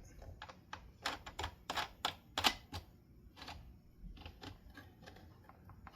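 Irregular clicks and clacks of a fan's metal rear guard being handled and fitted against its plastic motor housing, busiest in the first three seconds and sparser after.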